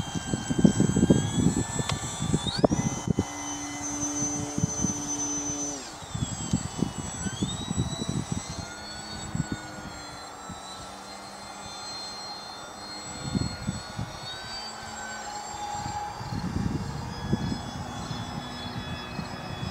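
Electric motor and propeller of a HobbyKing Tundra RC plane whining in flight, the pitch rising sharply about two and a half seconds in and dropping about six seconds in as the throttle changes. Wind rumbles on the microphone at times.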